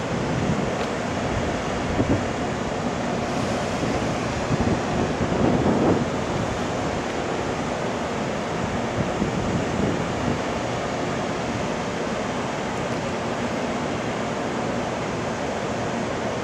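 Steady rushing hum of a 787 series electric train standing at the platform, its cooling blowers and air conditioning running. A few low rumbles come in the first six seconds.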